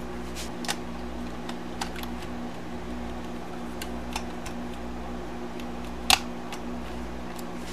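Small clicks and taps of plastic and metal laptop parts being handled as the laptop's cooling fan is fitted back beside the heat sink, with one sharper click about six seconds in, over a steady electrical hum.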